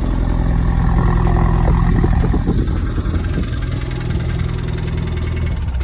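Ford Mustang EcoBoost's 2.3-litre turbocharged four-cylinder running steadily at idle. The engine is the one that had begun ticking and puffing white smoke, which friends took for a blown head gasket.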